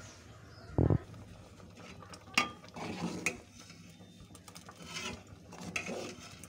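A metal ladle stirring liquid spinach kanji in a steel pot, clinking and scraping against the pot's sides. A dull thump comes about a second in and a sharp clink a little later.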